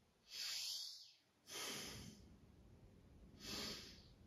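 A woman breathing audibly, three slow breaths with pauses between them.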